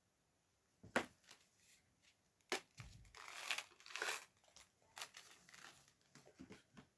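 A crinkly plastic wrapper being crumpled and handled, crackling in irregular bursts, with a sharp click about a second in.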